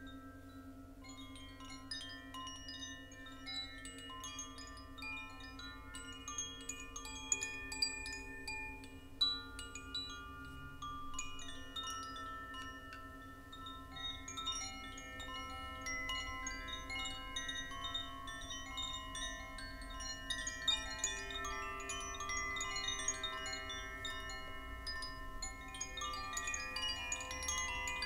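Handheld chimes, among them a wooden tube chime, swayed gently to give a continuous shimmer of overlapping, tinkling bell-like tones. A steady low hum sounds underneath.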